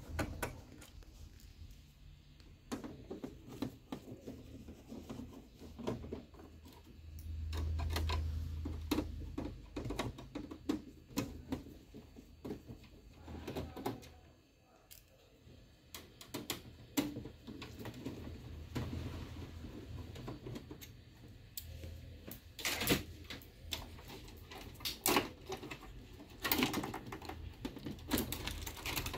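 Irregular small clicks and knocks of a screwdriver backing out the screws of a Xerox B215 printer's logic board, and of the board and its connectors being handled against the metal chassis. The sharpest clicks come near the end.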